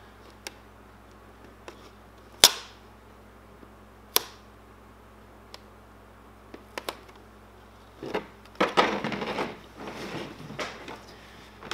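Sharp plastic clicks and taps from handling a plastic RC truck body while a thick vinyl graphic is pressed onto it. The two loudest come about two and a half and four seconds in, with a few fainter ticks between. A stretch of rustling handling noise follows near the end as the body is lifted and moved.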